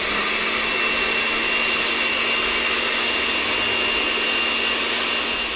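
Countertop blender running at a steady speed, liquefying herbs and water, with a constant high whine over the motor noise.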